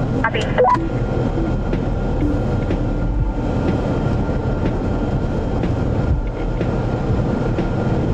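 Jeep Cherokee Trailhawk driving slowly on a dirt off-road trail: a steady low engine and drivetrain rumble with a few faint knocks, and a brief high chirp about half a second in.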